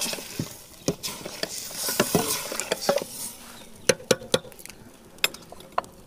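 Long-handled metal ladle stirring chicken in a wet yogurt-and-spice masala in a stainless steel pot: irregular clinks and scrapes of metal on metal, stopping shortly before the end.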